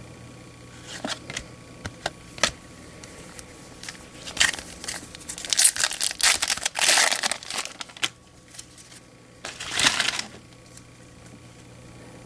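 Crinkling and tearing of a foil baseball card pack wrapper being ripped open and handled, in bursts from about four to ten seconds in, after a few light clicks.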